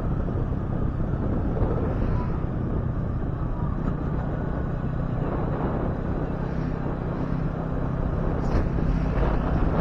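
Yamaha R15 V3's single-cylinder engine running steadily while riding, with wind rushing over the microphone.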